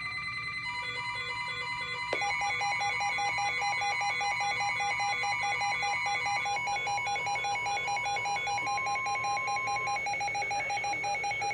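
Emergency Alert System attention tone: an electronic alarm of several layered tones pulsing rapidly on and off, with a ringing, telephone-like character. A lower tone joins about two seconds in and the alarm gets louder, then the pattern shifts again midway.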